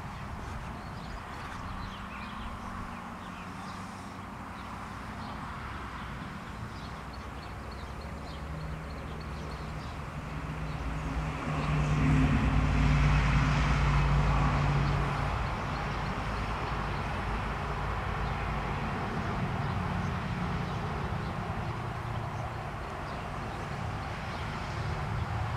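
Engine noise from a distance: a low steady hum that swells to its loudest about halfway through and then fades back to a lower steady level.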